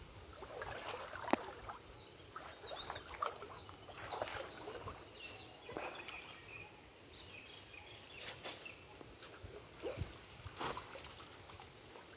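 Water splashing and a wet nylon fishing net being handled as men wade through a shallow stream, with scattered short splashes and knocks. In the first half a bird calls a series of short, high chirps, about two a second.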